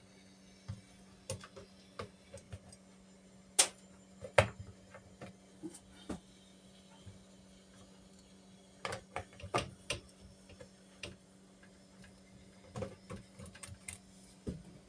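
Irregular clicks and knocks of dishwasher parts being handled and fitted by hand, the sharpest a few seconds in, over a low steady hum.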